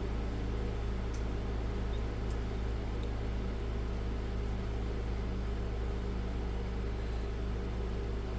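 Steady machine hum with a hiss, with two faint clicks in the first few seconds.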